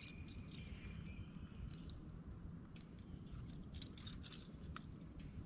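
Steady high-pitched chorus of insects, with a few faint clicks about halfway through.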